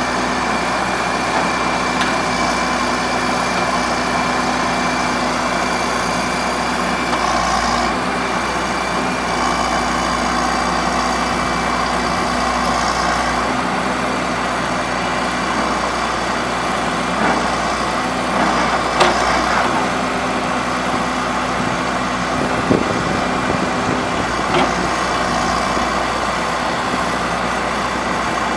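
John Deere 310SJ backhoe loader's four-cylinder diesel engine running steadily, with a few faint clicks and knocks.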